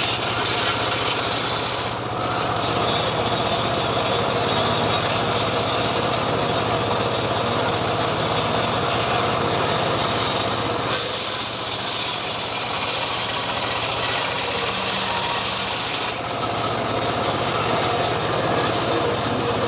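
Homemade engine-driven sawmill with its blade cutting through mahogany, a steady engine hum under a continuous rasping of blade on wood. The sound's character shifts at a few points, about two seconds in, around halfway and near the end.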